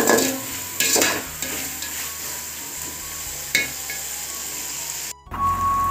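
Onions and tomatoes sizzling as they fry in oil in an aluminium pot, stirred with a metal spatula that scrapes against the pot, loudest at the start, about a second in, and again about three and a half seconds in. The sound breaks off just after five seconds and a steady high tone begins.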